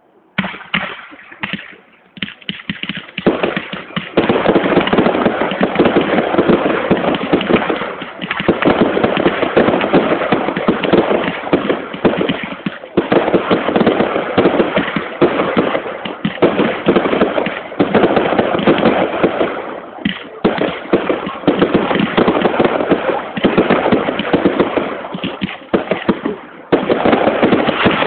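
Fireworks display: aerial shells and rockets bursting in rapid bangs and crackle. A few scattered reports at first, then from about four seconds in an almost continuous barrage, with only brief lulls.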